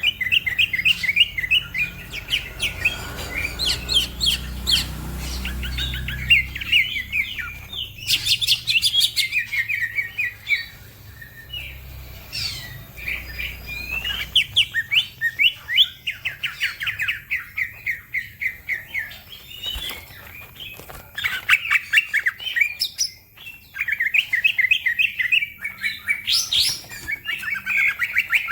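Green leafbird (cucak ijo) singing in fast runs of rapid chirping notes, in bursts broken by short pauses. A low hum runs underneath for about the first half.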